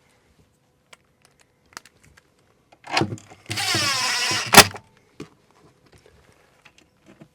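A cordless power tool, likely a drill-driver, runs in one burst of about a second, its motor whine shifting in pitch, and ends in a sharp click. A few light clicks and knocks of handling come before it and after.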